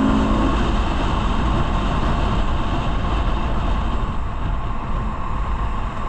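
A Yamaha sport motorcycle being ridden, its engine running under a steady rush of wind noise on the microphone.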